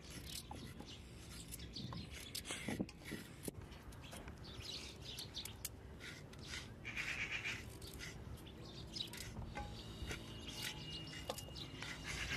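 Kitchen knives scraping the skin off raw carrots in short, repeated strokes, with birds chirping.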